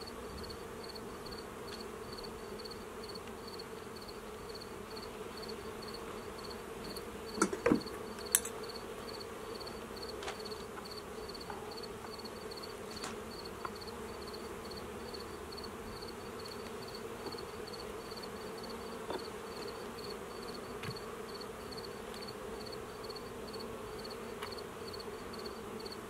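Honey bees buzzing steadily as a low, even hum over an opened hive during a frame inspection. A few sharp knocks come about seven to eight seconds in.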